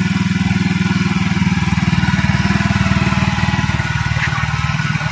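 Scooter engine running steadily, an even, fast putter with no change in speed. It is being test-run with a newly fitted radiator oil cooler.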